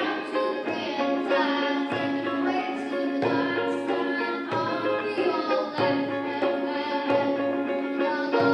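Ukulele strummed in chords, accompanied by a djembe hand drum struck about once a second.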